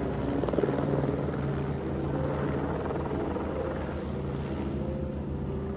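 Firefighting helicopter with a water bucket slung below it, its rotor blades making a fast, steady chop overhead.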